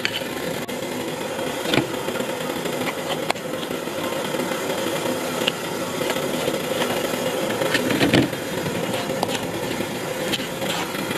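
A steady mechanical hum with a few light clicks and one louder knock about eight seconds in, as a metal spoon scrapes thick cake batter from a bowl into a foil loaf pan.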